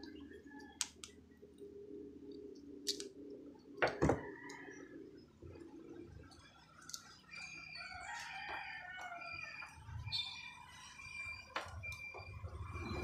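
A rooster crowing in the second half, with a few sharp clicks and knocks from the coaxial cable and connector being handled, mostly in the first few seconds.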